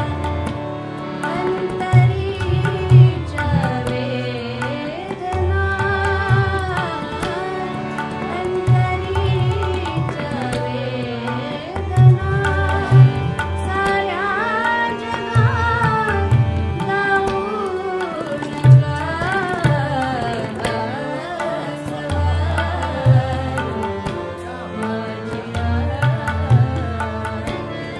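A woman singing a Marathi ghazal in a soft voice, with gliding ornaments, while she plays harmonium, accompanied by tabla with repeated deep bass strokes.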